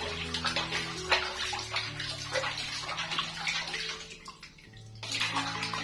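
Bath water splashing and running as a baby monkey is washed, the splashing easing off briefly about four seconds in before picking up again.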